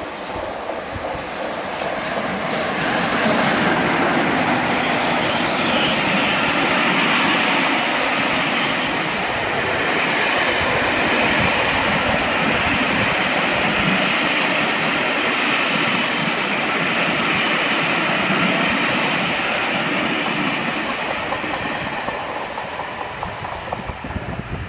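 Steam-hauled train headed by the Peppercorn A1 Pacific locomotive 60163 Tornado passing at speed, its wheels clattering over the rail joints. The sound builds over the first few seconds, holds steady for about twenty seconds as the coaches run by, and eases off near the end.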